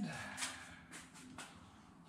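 Faint handling noise with a few light clicks, spaced about half a second apart.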